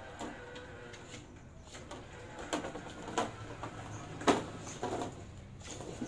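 12-volt electric motors of a homemade remote-control 4x4 mower chassis running with a steady whine, then several sharp knocks and rattles from the chassis, the loudest a little past the middle.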